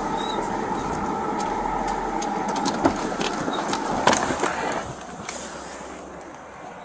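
Vehicle noise inside a police cruiser's cabin, with sharp clicks of the driver's door latch about three and four seconds in as the door is opened. The noise drops away after about five seconds as the officer steps out onto the road.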